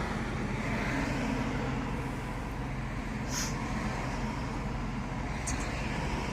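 Steady car engine and road noise heard from inside a moving car, with a brief high hiss about three and a half seconds in.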